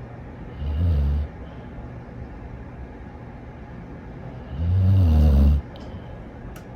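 A dog snoring: two low snores about four seconds apart, the second one longer, over steady low background noise. There is a faint click near the end.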